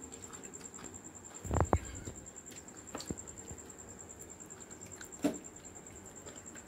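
Night insects trilling steadily at a high pitch in an even pulse. There are two dull thumps about a second and a half in, and light knocks near three and five seconds.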